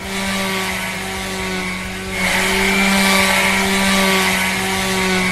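Electric rotary polisher with a foam pad running steadily, a constant motor hum. About two seconds in it grows louder and picks up a hiss.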